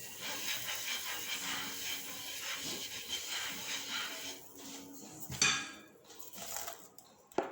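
A steady hiss in the kitchen for the first few seconds, then a loud clatter of a utensil against a pan about five seconds in and a sharp click near the end, with faint music underneath.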